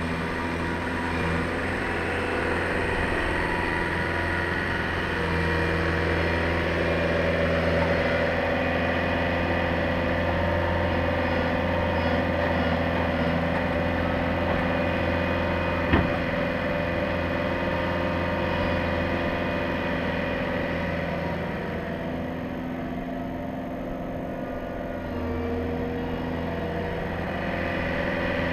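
Bobcat Toolcat 5600's diesel engine running steadily, picking up speed a few seconds in and easing off for a few seconds near the end. One sharp knock is heard about halfway through.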